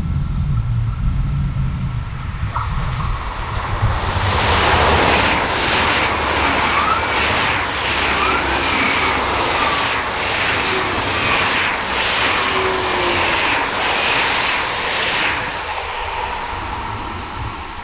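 A train passing on the track: a loud rushing of wheels on rails that builds, holds with a regular pulsing as the bogies go by, with a few brief thin squeals, then fades away near the end.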